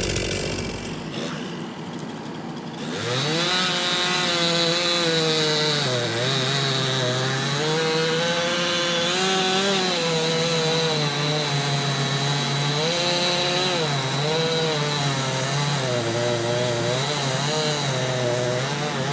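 Chainsaw comes in loud about three seconds in and runs on, its pitch dropping and recovering again and again as it bogs down cutting through wood.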